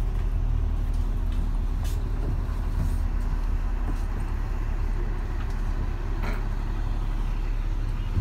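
Steady low engine and road drone of a moving motor vehicle, heard from inside its cabin, with a faint steady hum above it.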